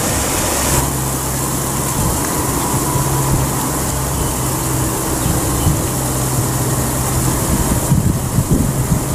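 A small engine, likely a motor scooter's, idling steadily with a low, even hum.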